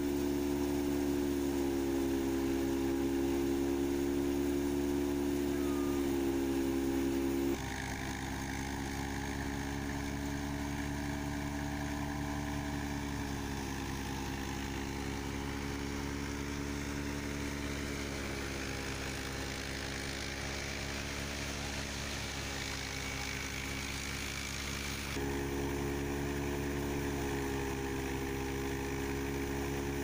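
Tractor-driven wheat thresher running steadily under load: a constant engine drone with the whir of the threshing drum and fan. The sound drops a little in level about seven seconds in and comes back up near the end.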